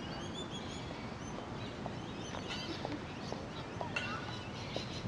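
Birds chirping in short, high, quick calls over a steady outdoor background hiss, with a few faint light clicks.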